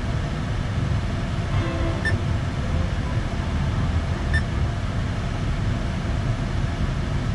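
Steady low rumble of an SUV idling, heard inside the cabin. About two and four seconds in come two faint short beeps from the touchscreen radio as FM stations are stepped.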